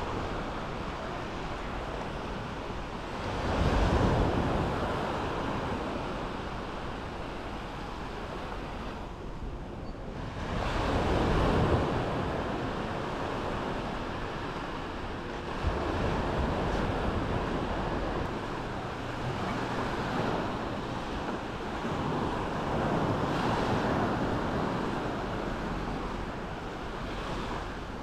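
Small sea waves washing against the shore, mixed with wind on the microphone; the rushing noise swells every few seconds, loudest about four and eleven seconds in.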